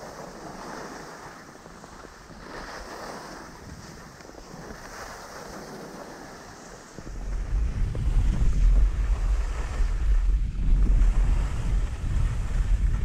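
Skis hissing and scraping over chopped-up piste snow, swelling and fading with each turn. About halfway through, wind buffeting the microphone sets in as a loud low rumble and becomes the loudest sound.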